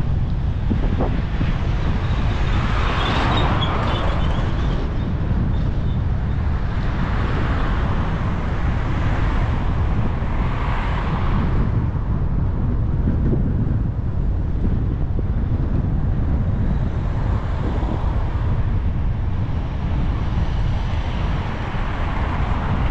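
Steady wind rumble on the microphone of a bicycle-mounted camera while riding along a road, with road traffic swelling and fading as cars pass, about four times.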